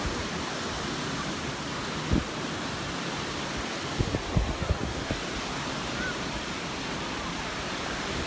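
Surf washing ashore with wind on the microphone, a steady rushing noise, broken by a few short low thumps about two seconds in and a cluster of them around four to five seconds in.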